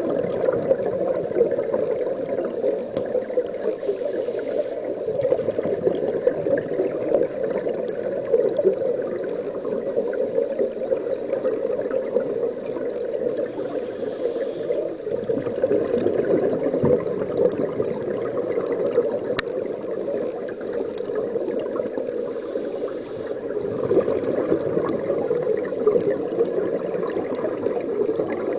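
Steady, muffled rushing and bubbling of water picked up underwater in a pool, with scuba divers breathing close to the camera.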